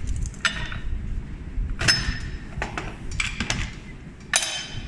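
Key turning in the lock of a mechanical capsule vending machine and its metal-and-plastic front panel being opened: a series of sharp metallic clicks and clinks.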